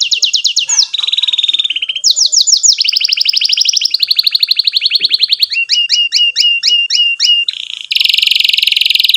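Domestic canary singing a long song of fast rolling trills, switching from one roll to the next at different pitches. Midway comes a slower series of falling notes, about four a second, and near the end a dense buzzy roll.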